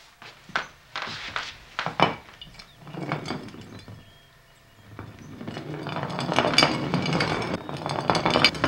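Glass jar knocked down onto a hardwood floor with a few sharp knocks. From about five seconds in it rolls across the wooden boards with a growing rumble.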